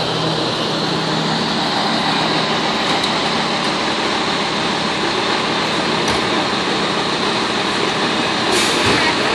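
Fire rescue truck responding with its air horn and Federal Q2B mechanical siren sounding, loud and steady throughout.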